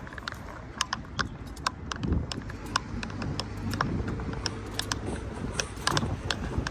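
Footsteps on asphalt at a walking pace, about two steps a second, over a low steady hum.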